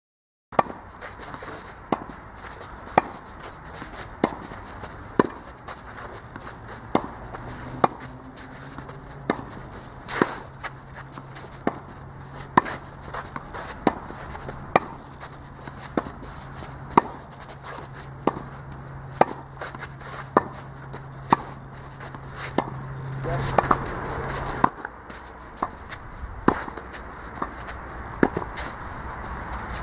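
Tennis rally on a clay court: sharp pops of the ball struck by rackets and bouncing on the clay, about one a second.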